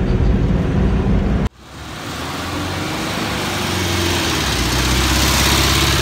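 Volkswagen T2 bus's air-cooled flat-four engine running, heard from inside the cabin. After an abrupt cut about one and a half seconds in, the bus is heard from outside driving along the street, with engine and road noise growing louder.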